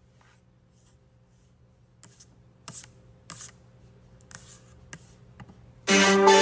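A few short clicks and scrapes, like tapping or handling a phone or keyboard, over a faint steady hum. Near the end, loud electronic music starts suddenly.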